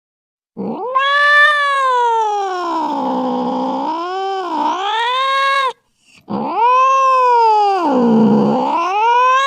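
Angry cat yowling in two long wails, each dipping in pitch in the middle and rising again.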